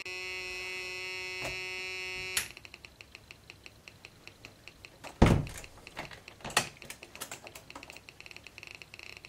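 Two-transistor multivibrator driving a small 8-ohm speaker, its pitch set by a light-dependent resistor: a steady buzzy tone that, about two and a half seconds in, drops to a rapid train of clicks, several a second, as the light on the LDR goes out. Two louder knocks come around the middle.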